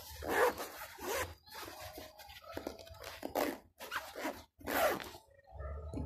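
Backpack zipper, freshly repaired, being run back and forth in about seven quick strokes of the slider along the teeth.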